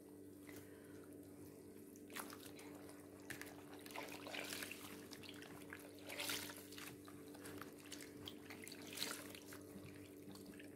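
Hands kneading and squeezing a wet cloth dish towel in a plastic basin of soapy water: faint, irregular swishes, splashes and squelches, a few louder ones about two, four, six and nine seconds in. A steady low hum runs underneath.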